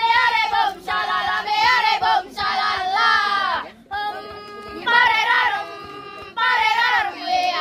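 A group of girls singing a scout yell (yel-yel) together, holding one steady note for about two seconds midway.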